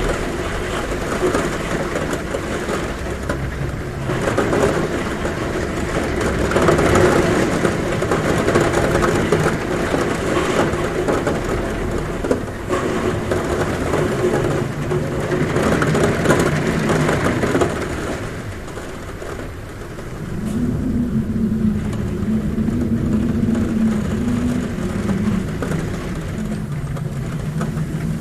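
Heavy rain drumming on a roof as a dense, surging hiss, with wind humming at a window; about two-thirds of the way through, a low wavering hum of wind comes in and holds.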